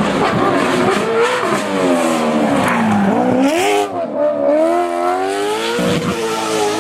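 Aston Martin Vantage GT4's V8 rally engine at high revs, its pitch falling for about three seconds as the car slows, then climbing sharply; there is a short drop about four seconds in, then it climbs again and holds.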